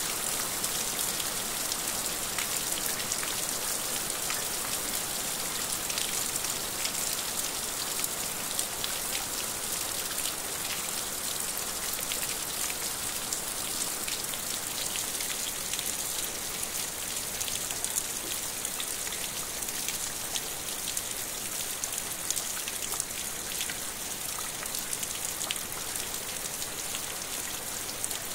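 Steady rain falling, a dense even hiss with many individual drops tapping on a surface.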